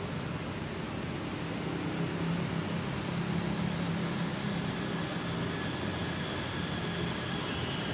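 A steady low motor hum over a constant hiss, swelling a little in the middle, with one brief high chirp just after the start.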